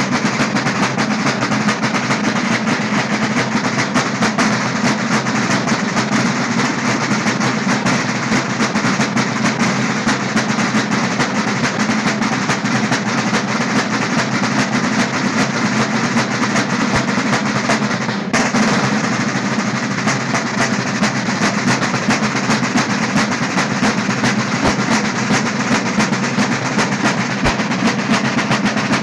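A troupe of Sicilian street drummers (tamburinai) playing large side drums together with sticks: dense, fast, continuous drumming with rolls.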